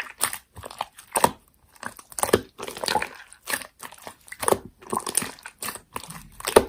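Slime being squeezed and pressed by hand, giving a run of irregular crunchy crackles and pops.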